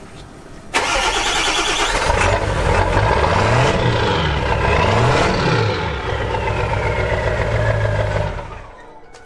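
Truck engine starting abruptly about a second in and revving up and back down twice, then running steadily before dying away near the end.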